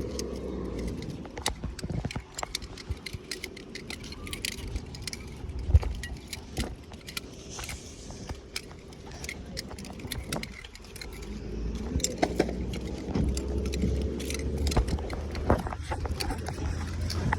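City bus running with a misfire, its low engine drone easing off after a couple of seconds and building again from about twelve seconds in, under frequent sharp rattles and clicks.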